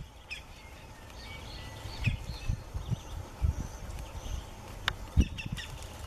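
Campo flicker giving short, scattered calls, with low rumbling thumps throughout and a sharp knock about five seconds in.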